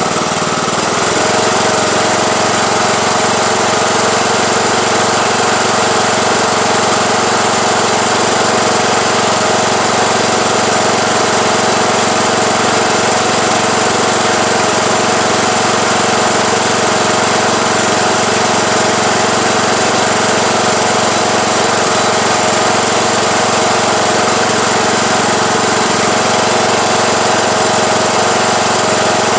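Craftsman YT3000 riding lawn tractor engine brought up to a higher throttle, its pitch climbing and settling about a second in, then running steadily at that speed.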